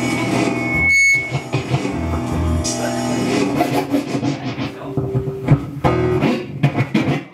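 Loud music with guitar, without vocals.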